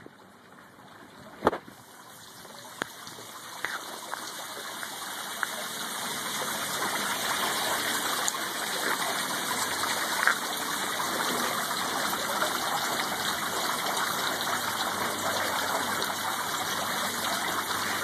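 Water jetting from a hose nozzle onto a porous concrete slab and splashing across its surface, a rushing hiss that builds over the first several seconds and then holds steady. A single sharp knock about a second and a half in.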